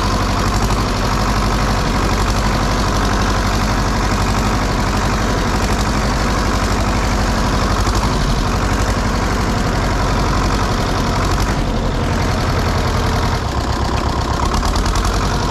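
Farm tractor engine running steadily, just brought back to life after sitting unused for years. Its low note shifts a little lower about thirteen seconds in.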